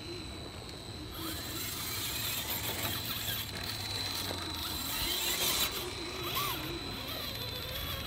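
Axial SCX10 II Deadbolt RC rock crawler's electric motor and gears whining as it crawls under load, its tyres scrabbling and grinding over rock. The scraping noise comes in about a second in and is loudest in the middle.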